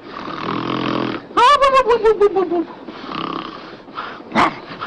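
A person snoring loudly. A rasping, rattling breath in is followed by a high, stuttering breath out that falls in pitch, and the cycle starts again about three seconds in.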